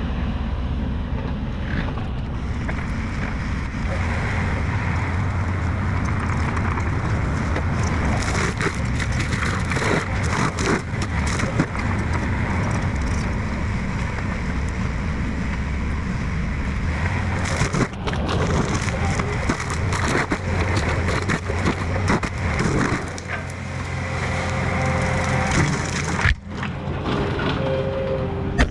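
Heavy-equipment diesel engine running steadily under load while trees are torn up and chopped, with repeated sharp cracking and splintering of wood over it.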